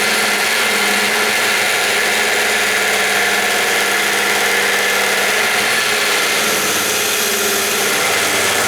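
Electric drill running steadily with a wood drill bit cutting into the edge of a steel door strike plate, enlarging the opening so the door latch can go in.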